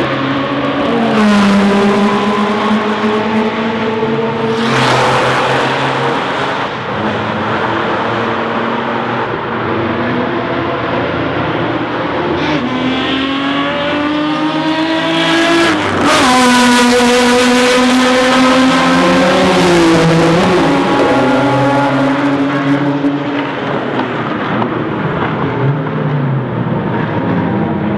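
Supercar engines on a race track as several cars pass one after another at speed, loud throughout. The engines rev up, with the pitch climbing hard for a few seconds past the middle, and the pitch drops as cars go by.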